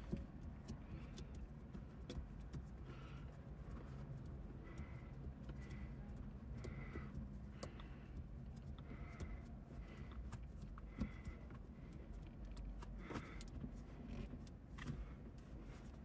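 Faint clicks and rubbing as a shift knob is twisted by hand onto a car's shift lever, over a low steady hum, with a few sharper clicks in the second half.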